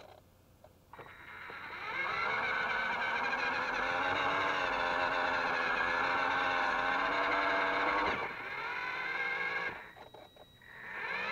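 Small electric drive motor and gears of a radio-controlled toy Linde forklift truck whining as it drives. The whine spins up about a second in, runs steadily, eases off around eight seconds, cuts out for a moment near ten seconds and picks up again at the end.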